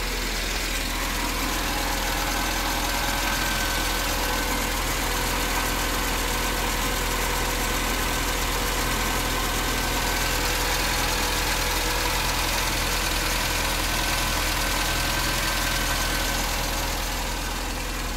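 Skoda Favorit's 1.3-litre four-cylinder petrol engine idling steadily. The owner says this idle sometimes peters out at traffic lights when the car has not been driven regularly.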